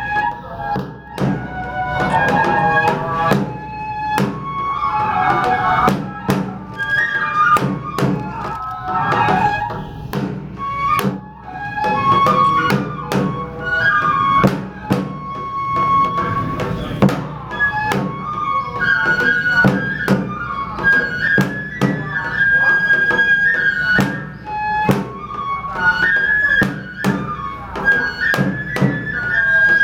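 Japanese kagura festival music: a bamboo flute playing a melody of held and sliding notes over frequent sharp drum strikes.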